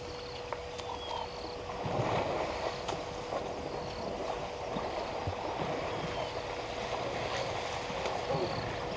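African elephants wading through a waterhole, water splashing and sloshing irregularly around them, heavier from about two seconds in. A steady faint hum and a few short high chirps sit over it.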